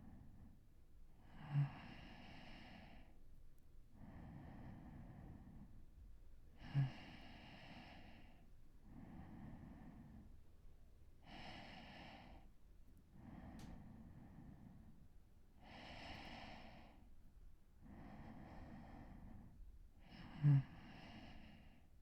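A man breathing slowly and deeply as he falls asleep, about one breath every two seconds. Three breaths catch in a brief, loud snore: about two seconds in, about seven seconds in, and near the end.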